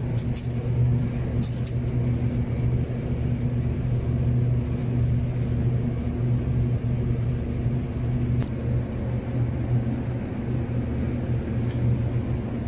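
Steady low drone of a large engine running at constant idle on the moored ship alongside, with no change in pitch or speed.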